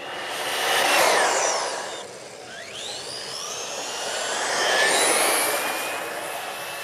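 RC buggy's brushless electric motor on a 3S LiPo, whining at speed on a flat-out top-speed run. The high whine peaks as the buggy passes about a second in and drops sharply in pitch as it goes away. It rises again as the buggy accelerates and makes a second pass near five seconds in.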